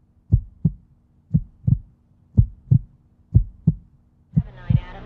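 Heartbeat sound effect: deep lub-dub double thumps, about one pair a second. Near the end a dense wash of sound swells in beneath the beats.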